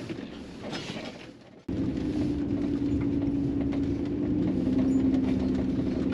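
Campervan driving: a quiet hiss, then a sudden jump about a second and a half in to steady engine and road noise with a low hum, which drops slightly in pitch about four and a half seconds in.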